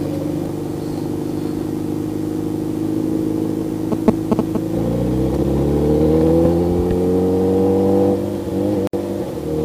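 Superbike engine running on the move, steady at first, then climbing in pitch as it accelerates from about five seconds in and dropping back near the end. A few short sharp sounds about four seconds in.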